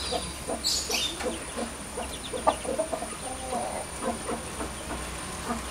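Chickens clucking in short, repeated calls.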